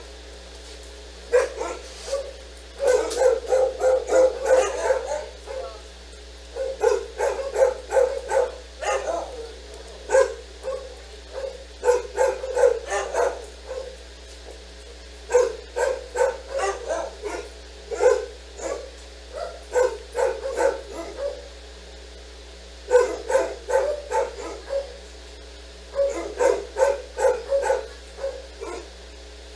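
A dog barking in rapid bouts of quick barks, about half a dozen bouts with pauses of a second or two between them.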